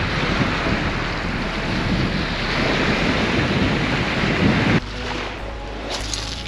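Strong wind buffeting the microphone over waves on the water. It cuts off sharply about five seconds in, leaving a quieter background.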